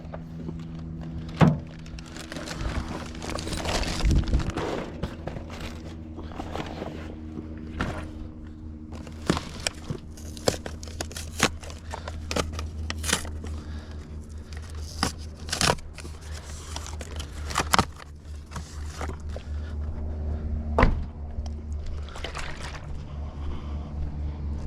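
Irregular knocks, clicks and scrapes of objects being handled, with a few louder thunks, over a steady low hum.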